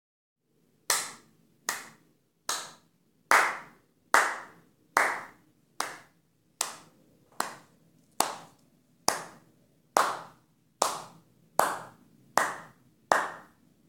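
One person clapping slowly and steadily, about sixteen claps a little under a second apart, each ringing briefly off the room: a slow, ironic clap of mock congratulation.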